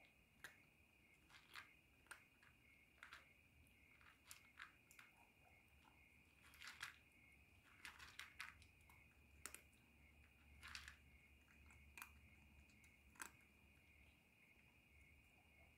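Cat crunching dry kibble from a plastic bowl: faint, irregular crunches and clicks as it chews, a few louder bites around the middle.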